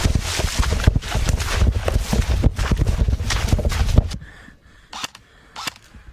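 Footsteps and rustling gear with heavy wind buffeting on the microphone, which cut off abruptly about four seconds in. After that it is much quieter, with a few isolated sharp clicks.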